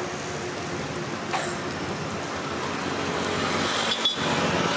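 Roadside food-stall ambience: a steady hiss with traffic hum underneath, and a single light clink about a second and a half in.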